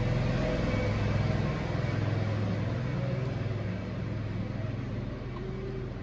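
A steady low engine rumble, easing off a little in the second half.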